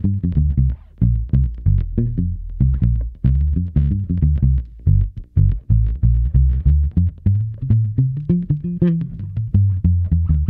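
Electric bass played in a run of short, palm-muted notes, about four or five a second, through an EarthQuaker Devices Blumes Low Signal Shredder switched on as a light overdrive boost: a little extra bite and mids, with so little gain that it hardly reads as an overdrive.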